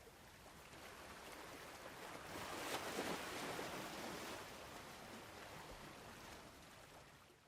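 Ocean surf: a wave breaks and swells to its loudest about three seconds in, then washes back into a softer steady rush.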